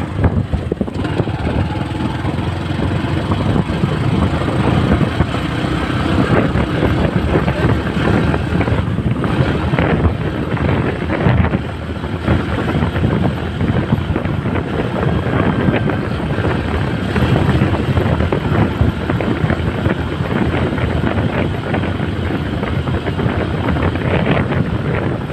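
Motorcycle riding noise picked up by a helmet chin-mounted camera: wind buffeting the microphone over the bike's running engine, steady throughout.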